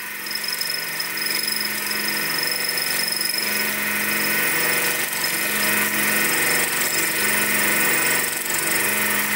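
Sieg SX2P mini mill running, its end mill cutting a pocket in a block of perspex (acrylic): a steady motor whine with the cutting noise.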